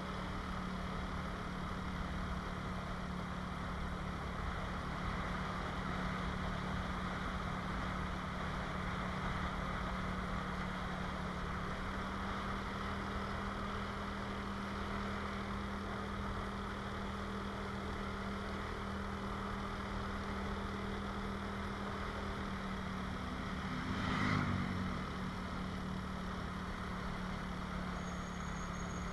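Motorcycle engine running steadily while riding, a low even drone under a steady hiss, with a short louder swell near the end.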